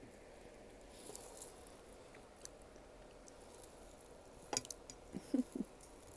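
A person chewing soft funfetti layer cake close to the microphone: quiet, moist mouth sounds, with a cluster of louder clicks and smacks about four and a half to five and a half seconds in.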